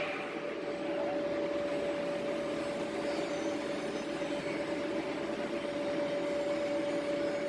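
Yenar YF 60210 roll fluting machine running: a steady motor hum with a constant whine.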